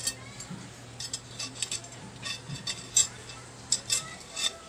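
Steel spokes clinking against one another and against the aluminium hub as they are threaded into the hub flange while lacing a motorcycle wheel: a string of light, irregular metallic clinks, several a second at times. A low steady hum runs underneath.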